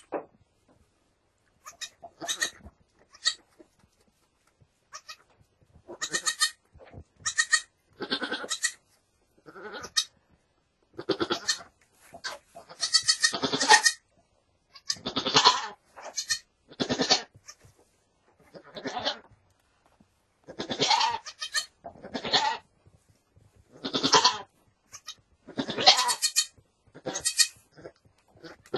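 Goats bleating in a long string of short calls, one every second or two, with a newborn kid just born to the doe.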